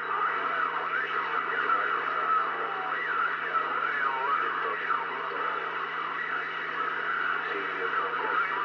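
CB radio receiving on 27.005 MHz (channel 4): steady band static with a low hum, and faint, garbled voices and wavering tones of distant stations coming in through sporadic-E skip.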